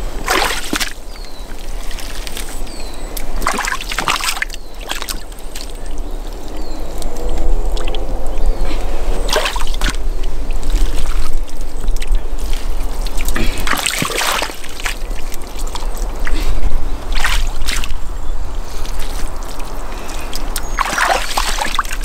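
Hands scooping wet mud and water from a shallow ditch and slapping it against the base of a stick dam: splashes and sloshes every few seconds, about seven in all, over a steady trickle of water.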